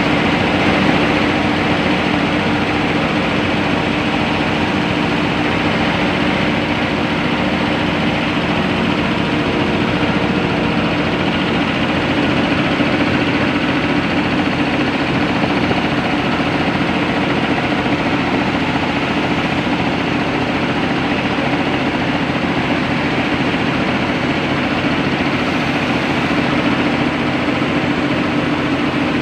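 Starting air compressor running steadily: a loud, even mechanical noise with a steady hum.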